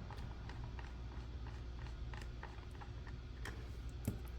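Light, irregular clicks and ticks of small parts being handled during laptop work, with one sharper knock about four seconds in, over a low steady hum.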